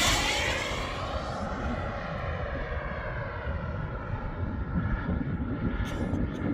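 KingTech K102 turbine of a Boomerang Ranger RC jet, loudest just after it passes, its whine dropping in pitch. It then runs on quieter and steadier as the jet flies away.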